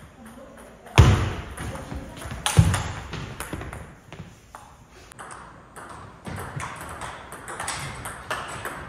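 Table tennis rally: a celluloid ball clicking off rubber paddles and the table in quick irregular strokes, with two heavier knocks about one and two and a half seconds in.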